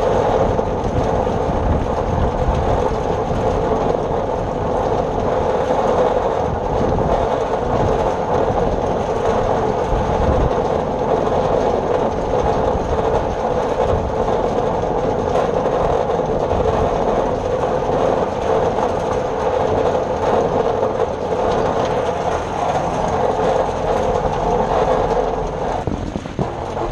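New Holland Super 66 square baler running steadily while baling hay.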